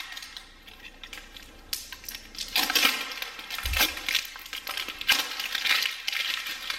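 1.5-inch painter's masking tape being peeled off its roll in several short, uneven pulls, with a brief low thump about midway through.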